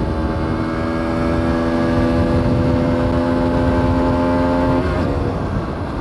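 The 2021 Aprilia SX125 supermoto's single-cylinder four-stroke engine running under way at a steady speed. Its note holds one pitch for about five seconds, then drops away near the end, over wind rumble on the microphone. The bike is new and is being ridden gently.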